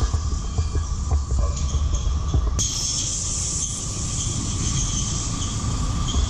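Greyhound track's mechanical lure running along its rail with a steady squeaking noise, the sound that sets the waiting greyhounds off. A louder hiss comes in suddenly about two and a half seconds in.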